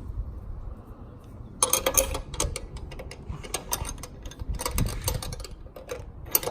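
Hand ratchet clicking in short, irregular bursts while turning a thread-locked bolt into the tailgate's pressed-in inserts. The clicking starts about a second and a half in.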